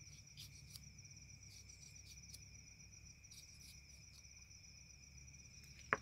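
Crickets chirping in a steady, fast trill. A single sharp click sounds just before the end.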